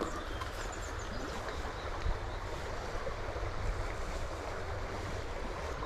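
Steady rush of a small stream's flowing water, with a low wind rumble on the microphone.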